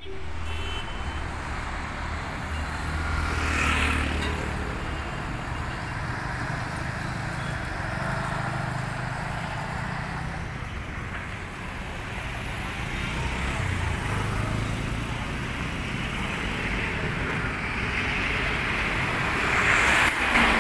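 Big tourist coaches driving past: diesel engines running with tyre and road noise, louder near the end as a bus passes close.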